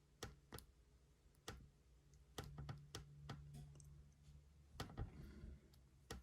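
Faint, scattered clicks and taps from a small spur gear and hand tools being handled as the gear is fitted onto a micro RC crawler's motor shaft, about nine of them at uneven intervals.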